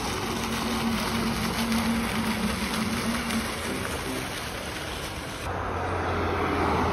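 Fountain water splashing steadily, a rain-like rushing with a faint hum under it; about five and a half seconds in it cuts to the lower rumble of street traffic.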